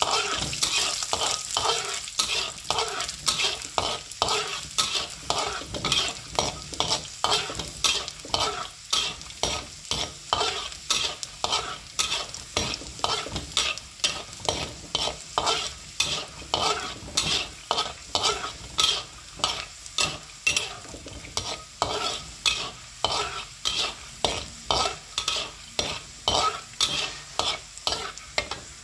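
Peanuts deep-frying in hot oil in a wok, sizzling steadily, while a metal spatula scrapes and stirs them in a regular rhythm of roughly two strokes a second.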